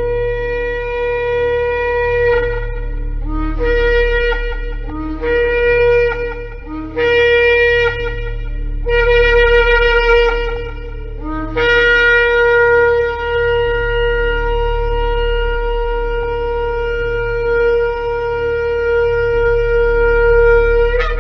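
Shofar blasts: a held blast, then four shorter ones, then one long blast held for about nine seconds. Each blast starts on a brief lower note before jumping up to the main tone. A low steady hum runs underneath.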